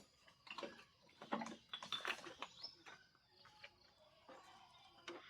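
Faint bird chirps, a couple rising quickly to a high note, amid scattered light clicks and rustles.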